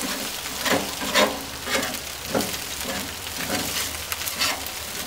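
Long-handled grill brush scraping stuck-on chicken residue off a hot lava-rock grill stone in repeated back-and-forth strokes, about two a second, over a steady sizzle from the grease on the stone.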